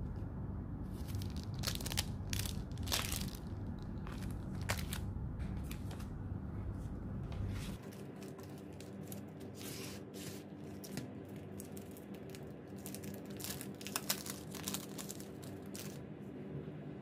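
Clear plastic sleeves and sticker packs crinkling and rustling in the hands, in irregular crackly bursts.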